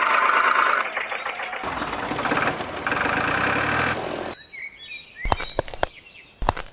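A small motor runs for about four seconds, changing pitch partway through, then cuts off suddenly. After that, birds chirp and a few sharp clicks sound.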